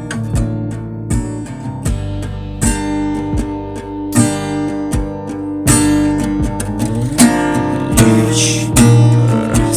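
Song instrumental with strummed acoustic guitar over a steady beat.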